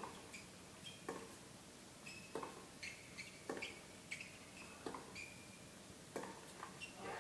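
A tennis rally heard faintly through a television's speaker: racket strikes on the ball about every second and a quarter, with short high squeaks of tennis shoes on the hard court between them.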